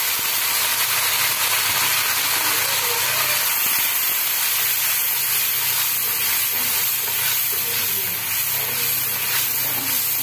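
Spice paste of ginger-garlic paste, turmeric, chilli and coriander powder sizzling steadily in hot oil in an aluminium karahi as it is stirred with a steel spatula. The masala is being fried down with a little water added so it does not burn.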